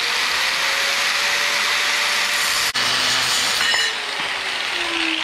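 Corded angle grinder with a small cutoff wheel cutting through scrap steel angle: a steady high motor whine under the hiss of the cut. It breaks off for an instant about two and a half seconds in, and the whine drops in pitch near the end.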